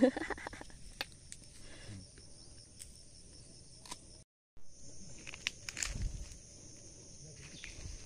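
Steady high-pitched insect chorus, with a few faint clicks and knocks from hands and bowls. The sound cuts out completely for a moment just after four seconds in.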